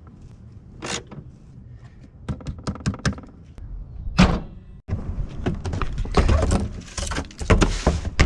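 A run of clicks and knocks, then the hood of a 2022 Nissan Frontier slammed shut with a loud thunk about four seconds in. After that, the plastic lid of a wheeled trash bin is handled, with knocking and rattling.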